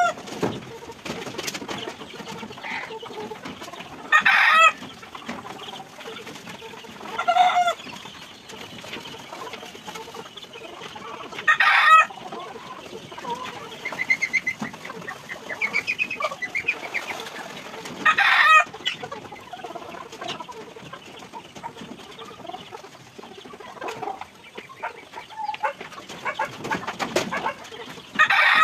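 Chickens clucking, with five loud, short calls spread a few seconds apart, the last near the end.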